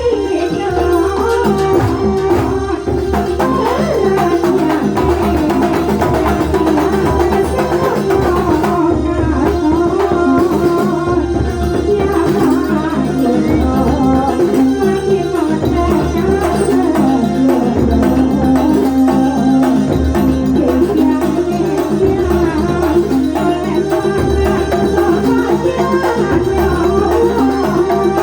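Live kuntulan music from Banyuwangi: an ensemble of hand drums beating a steady rhythm under a wavering melody line.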